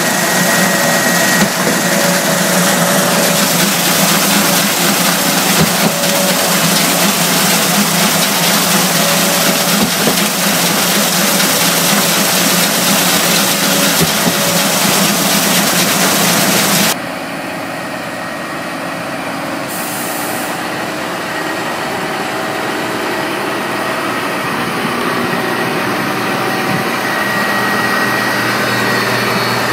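Truck mixer discharging wet concrete down its chute through the grille into a concrete pump's hopper, a loud, dense pour over diesel engines running. About seventeen seconds in it drops suddenly to a quieter, steady diesel engine running.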